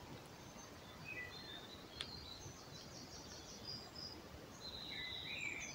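Faint woodland birdsong: scattered short high chirps and whistles from small birds, with a longer whistled note near the end, over a low background hiss. A single sharp click about two seconds in.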